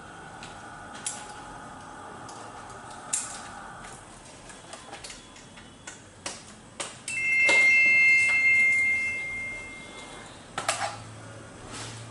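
Scattered clicks and knocks of hands working plastic casing and telephone cables at a wall-mounted PABX unit. About seven seconds in, a loud steady electronic two-tone beep sounds for about three seconds.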